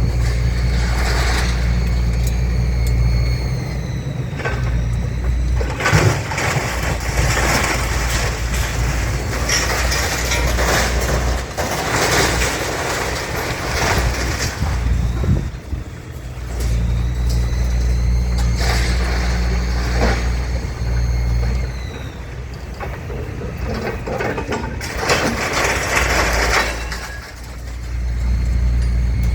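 Heavy diesel engine running steadily, with several loud, noisy bursts a second or more long breaking in over it.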